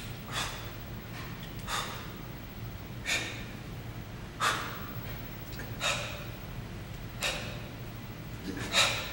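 A man breathing hard from exertion: seven short, forceful exhalations, evenly spaced about every second and a half.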